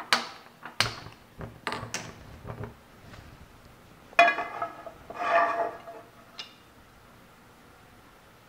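Several sharp clicks of a handheld gas spark lighter at a stove burner. About four seconds in, a non-stick frying pan clanks down onto the metal burner grate with a ringing rattle as it settles.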